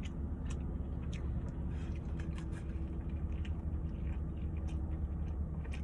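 Close-up chewing of a messy, fully loaded steak and cheese sandwich: many small wet mouth clicks scattered throughout, over a steady low hum.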